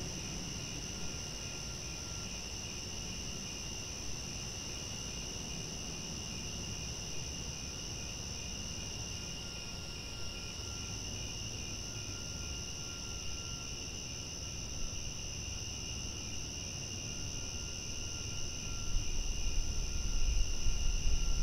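Crickets chirring at night: several steady high trills at different pitches, one of them pulsing rapidly. A low rumbling noise swells under them in the last few seconds.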